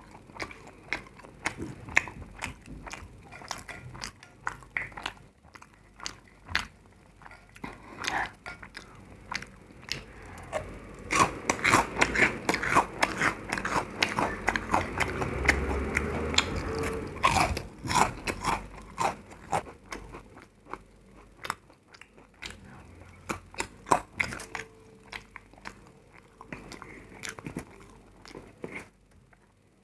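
A person biting and chewing crunchy food, a long run of sharp crunches that is densest and loudest for several seconds around the middle.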